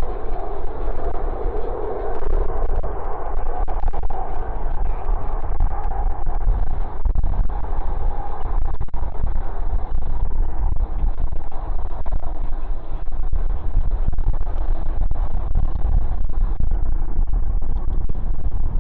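Jet engines of a departing aircraft, loud at first and fading away over the first half. Strong wind buffets the microphone throughout, with a heavy low rumble that makes the recording distorted and crackly.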